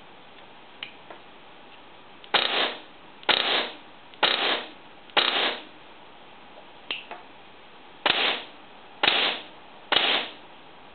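Tokyo Marui G3 airsoft rifle with an experimental HPA (compressed-air) mechbox firing seven single shots, about one a second with a short pause in the middle. Each shot is a sharp crack trailing off in a brief hiss. A faint click falls in the pause.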